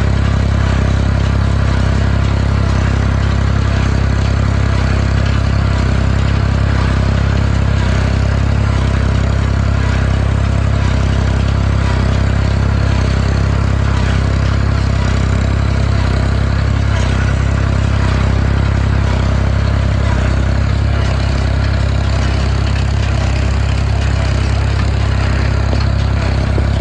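Heavy farm machinery engine running steadily with a constant low drone, without revving up or down.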